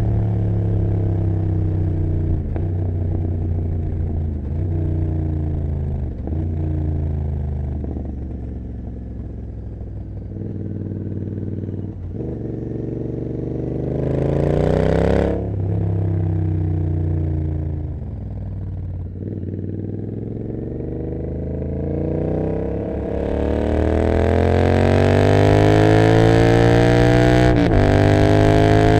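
Royal Enfield Continental GT 650's parallel-twin engine through open Emgo cafe mufflers with no dB killers, heard while riding. The engine note dips and recovers several times in the first half, and there is a brief whoosh about halfway. Then comes a long rising pull under acceleration, with wind rush growing, and a sharp gear change near the end.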